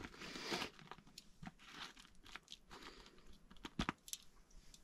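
Faint crinkling and scattered light clicks of a paper plate of food being handled, with a sharper pair of clicks a little before the end.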